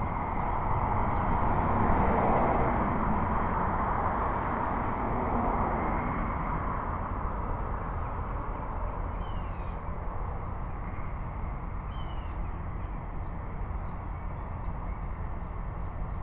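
Outdoor ambience: a steady rushing noise that swells in the first few seconds and slowly falls away, with a bird giving two short, descending calls about nine and twelve seconds in.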